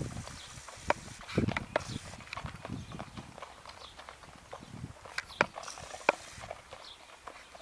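Horse's hoofbeats: irregular sharp clicks mixed with a few dull thuds.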